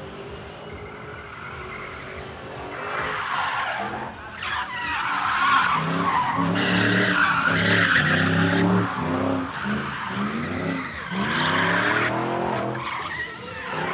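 BMW E30 drift cars drifting: engines revved hard with pitch rising and falling on the throttle, over long tyre squeal. It is loudest midway through.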